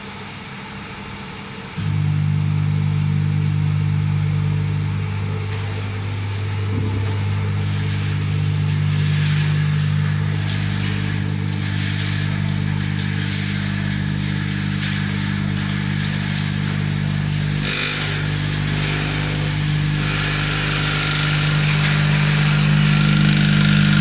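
Machinery of an industrial walnut cracking and sorting line switching on about two seconds in, then running with a steady low hum. A thin high whine joins a few seconds later, over light clicking.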